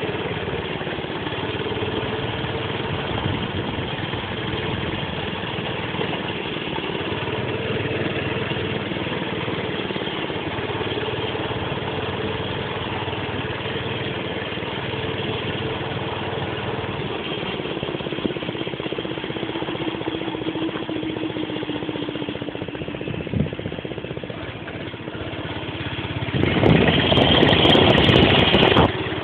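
A mini bike's small engine running steadily, its pitch sinking a little past the middle. Near the end there is a louder, noisy stretch of about two seconds that cuts off suddenly.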